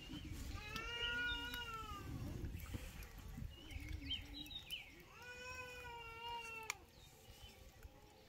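Two long, drawn-out animal calls, each rising and then falling in pitch, the first about half a second in and the second about five seconds in, with short bird chirps between them.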